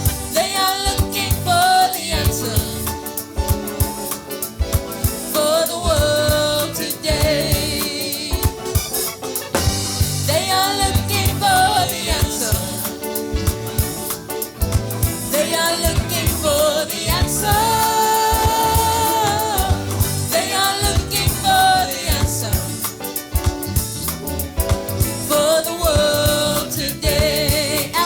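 Gospel worship song: a melodic sung vocal line over instrumental backing with a steady drum beat.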